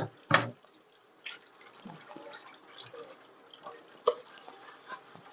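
Dishes being washed by hand in a kitchen sink: water splashing and dripping, broken by a few sharp knocks of dishware. The loudest knocks come right at the start and again about four seconds in.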